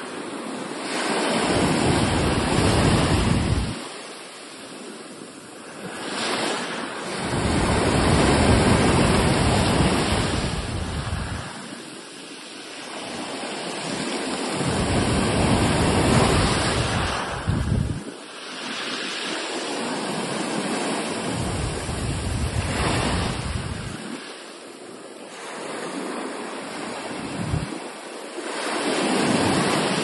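Sea waves breaking on a shore, the surf swelling and fading about every six or seven seconds, with wind rumbling on the microphone.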